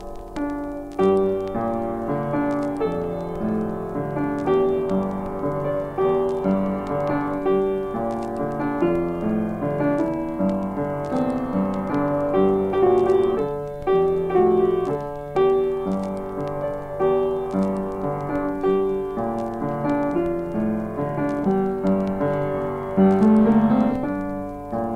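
Solo piano music, a continuous run of held notes.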